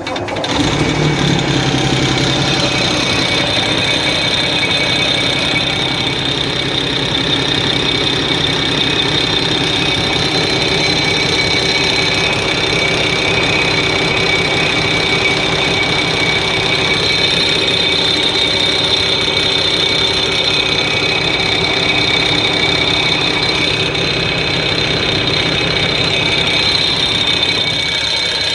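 Cummins ISX diesel engine idling, with a steady high-pitched whine over it: an odd noise whose source the owner has not been able to trace.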